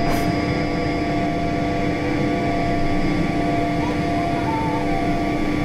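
Learjet 45 cockpit noise in the climb just after takeoff: a steady rush of air and the hum of its two Honeywell TFE731 turbofans at climb power, with several steady whining tones over it.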